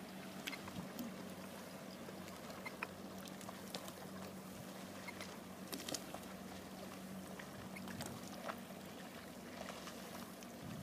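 Sealine SC35 motor cruiser's engines running at low speed across the water as it comes in to dock: a steady low hum, with scattered light clicks and ticks over a soft background wash.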